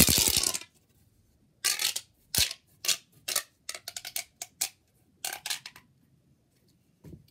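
Plastic pop tube fidget being stretched and squashed, its ribbed sections popping in a run of short ratcheting bursts, the loudest in the first half-second.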